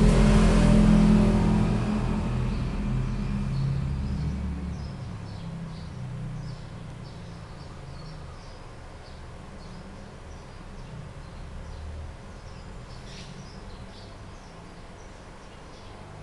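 A passing motor vehicle's low rumble, loud at first and fading away over the first five or six seconds. Then a quiet steady background with scattered faint high chirps.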